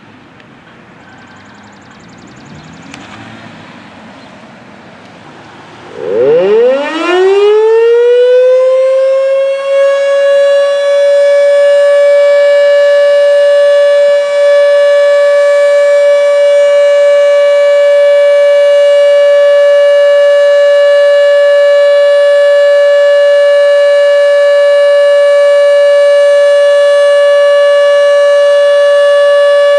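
Model 5 outdoor warning siren spinning up about six seconds in, its pitch climbing quickly and levelling off into one loud, steady tone that holds to the end: the steady Full Alert signal.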